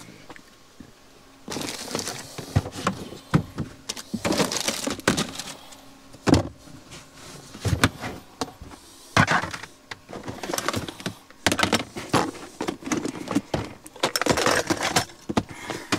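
Rustling and a string of knocks and clunks from things being handled and set down close to the microphone, starting about a second and a half in.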